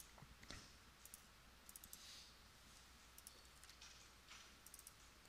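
Near silence: room tone with a few faint, scattered clicks of a computer mouse.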